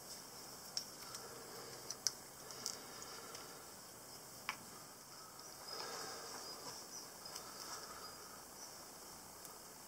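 Faint handling noises while gluing a kiln door seal: a few small clicks and taps as a plastic squeeze bottle of high-temperature adhesive is handled, and a soft scuffing about six seconds in.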